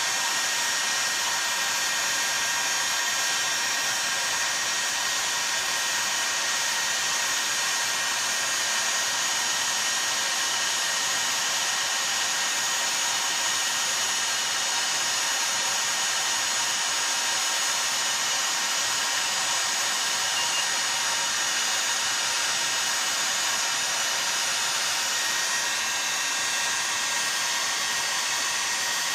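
Heat gun running steadily, blowing hot air onto an aluminium chainsaw crankcase half to expand it for fitting the crankshaft bearing. It makes an even rushing hiss with a faint steady whine and does not change.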